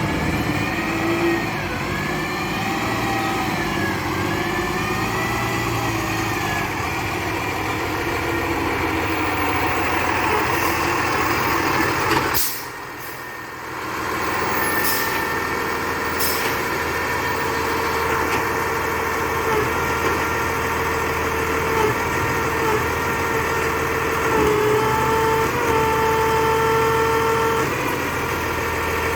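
Labrie Expert 2000 recycling truck running, its pitch rising and falling for the first few seconds, then settling into steady whining tones. The sound drops away briefly about twelve seconds in.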